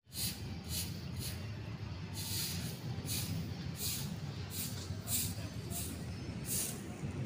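Outdoor night ambience of a parking lot: a steady low rumble of distant traffic, with short hissing, scraping strokes at irregular intervals about every half second to second.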